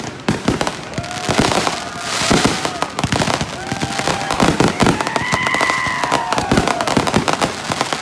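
Consumer firework cakes firing in rapid succession: a dense stream of bangs and crackling, with several whistling shots that rise and then fall in pitch.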